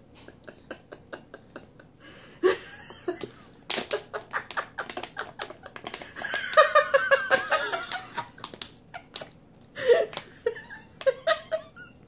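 Adult women laughing in repeated fits, loudest about six to eight seconds in and again near the ten-second mark. A run of small, quick clicks is heard in the first two seconds.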